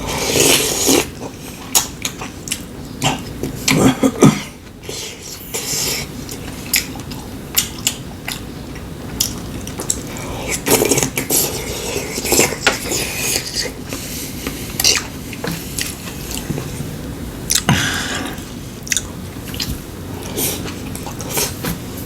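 Spoons and chopsticks clinking and tapping against bowls and plates at irregular moments, with chewing in between.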